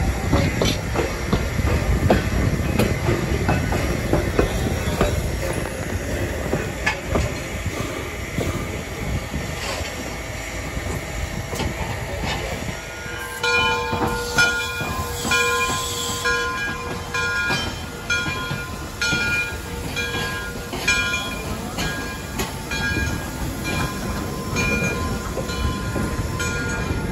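A vintage interurban rail car rolling past with a low rumble and wheel clicks. About halfway through, a steam locomotive's bell starts ringing, one strike roughly every second, as Frisco 2-10-0 No. 1630 moves along the track.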